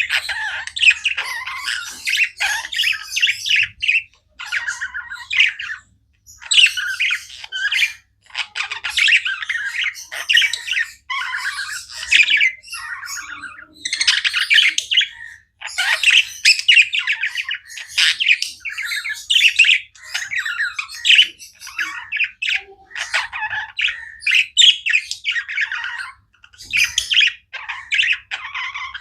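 Several budgerigars chirping and chattering nonstop, in quick overlapping bouts with short pauses every few seconds.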